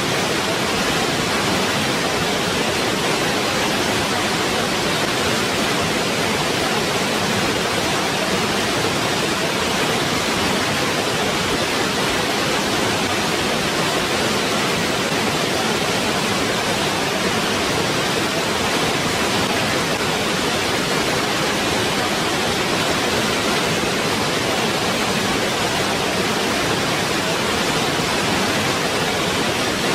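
Waterfall rushing: a steady, unchanging roar of falling water.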